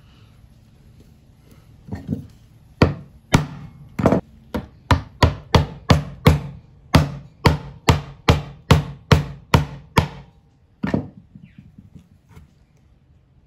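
A chisel chopping repeatedly down into a small wooden block, cutting out a rectangular keyway for a marking gauge's wedge: a run of sharp knocks, two to three a second, stopping about ten seconds in with one more knock shortly after.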